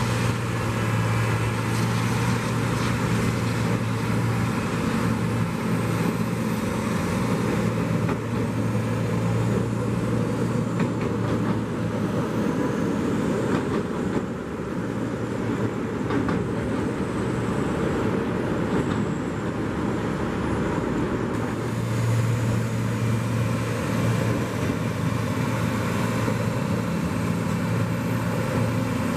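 Steady diesel engine hum of a track-laying work train (sleeper gantry and flatcars) running, over a haze of road traffic noise. The engine hum weakens for several seconds in the middle and comes back strongly toward the end.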